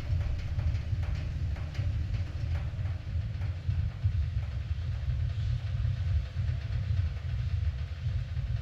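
Binaural recording of an immersive sound-art soundscape: a deep, continuous low rumble, with faint light ticks and clicks above it in the first few seconds and a soft hiss later on.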